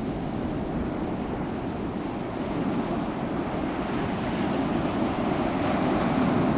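Sea waves washing in as a continuous rushing surf, swelling slightly about two thirds of the way through.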